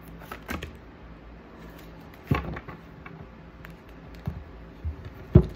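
Scattered light knocks and taps from tarot cards being handled against a table, about five in all, the loudest near the end, over a faint steady hum.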